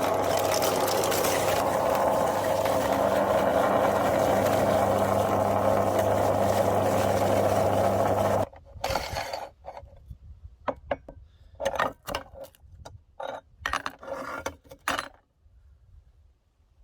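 Meat grinder running steadily with a constant hum, crunching hard candy, then cutting off suddenly about eight seconds in. Scattered clicks and knocks follow for several seconds, then it goes quiet.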